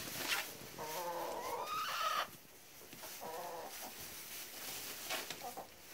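Domestic hens clucking. A drawn-out call rises in pitch about a second in, with shorter clucks near three and five seconds, and brief scratchy rustles from hens scratching in wood shavings.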